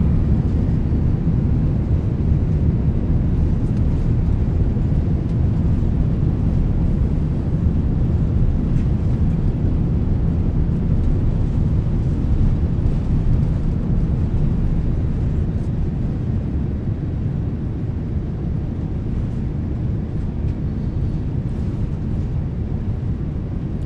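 Airbus A350-900 jet engines at takeoff power, heard from inside the passenger cabin during the takeoff run: a loud, steady low rumble that eases a little in the second half.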